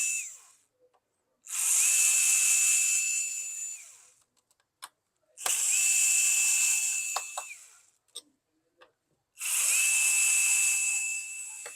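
Small electric screwdriver running in short bursts of about two seconds, three times over with the tail of one more at the start, backing out the screws from a laptop's bottom case. It gives a steady high whine that fades as each run ends, with small clicks between runs.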